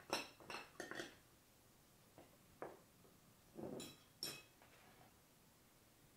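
Faint clinks of a metal knife or cake server against a metal serving tray as cake is cut and lifted out: a quick cluster of knocks in the first second, a couple of soft taps, then two ringing clinks about four seconds in.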